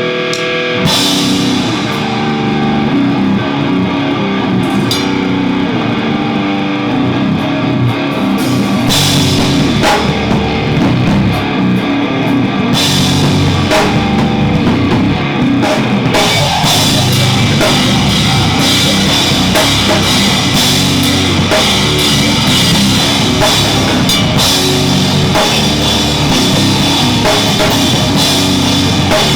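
Loud heavy rock music with a drum kit, crashing cymbals and guitar, starting abruptly and running on without a break.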